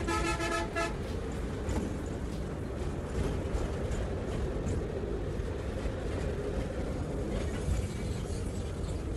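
Steady low rumble of a moving bus's engine and road noise inside the cabin, with a vehicle horn sounding one long toot that ends within the first second.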